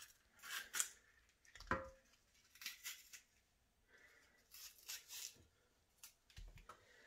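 A knife cutting a red bell pepper by hand: a few faint, short cutting and tearing sounds with quiet gaps between them.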